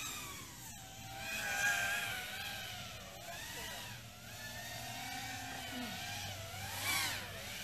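Racing quadcopters' motors and propellers whining, several pitches wavering up and down as the throttles change. About seven seconds in, one drone passes close by, its whine swelling and rising, then falling away.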